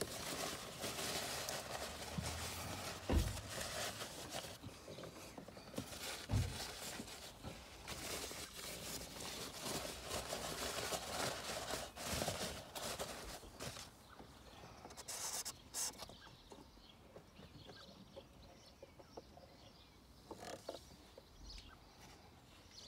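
Paper towel rustling and crumpling as it is packed around an engine's oil filter housing, with a few soft knocks of handling. It goes quieter for the last several seconds.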